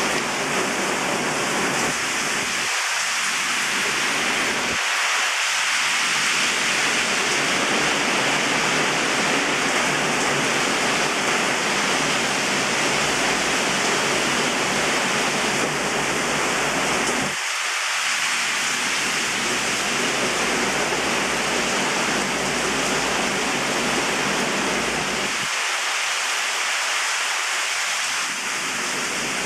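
Heavy rain falling steadily in a thunderstorm downpour, a dense, even hiss.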